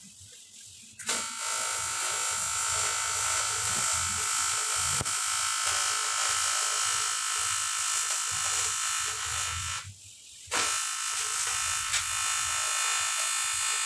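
TIG welding arc on a cast metal water jacket, a steady buzzing hiss. The arc strikes about a second in, cuts out near ten seconds, and strikes again half a second later.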